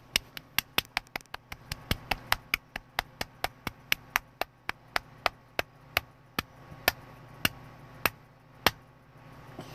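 A long run of sharp taps, about five a second at first, slowing steadily to under two a second near the end.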